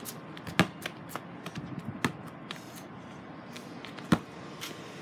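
A basketball bouncing and striking hard surfaces: a few sharp thumps, the loudest about half a second in and just after four seconds, with lighter taps between.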